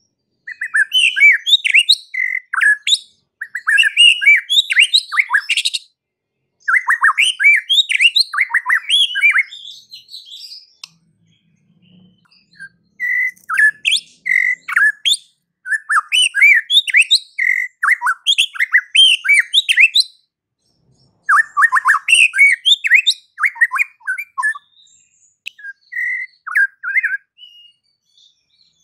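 White-rumped shama (murai batu) singing a loud, fired-up song: phrases of rapid whistled notes and trills a few seconds long, separated by short pauses, with a longer lull about halfway through.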